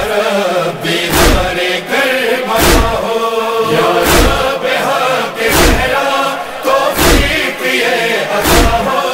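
Urdu noha, a Muharram lament: voices chanting together between the solo verses, over a slow, steady beat of heavy thumps about once every one and a half seconds.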